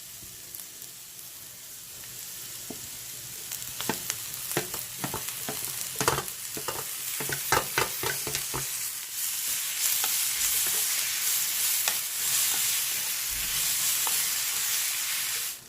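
Tomatoes frying in an onion-and-spice masala in a pan: a steady sizzle that grows louder after about nine seconds. From about four to nine seconds in, a spoon scrapes and knocks against the pan as the masala is stirred.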